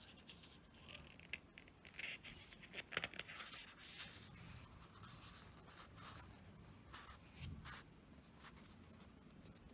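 Faint paper rustling with light taps and scrapes: pages of a thick photobook being turned and handled, the busiest about two to three seconds in.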